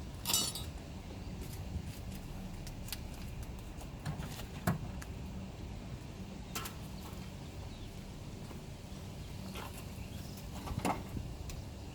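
Scattered sharp clicks and knocks of tools and parts being handled during work on a car, over a steady low hum. The loudest knocks come just after the start and a little before the middle.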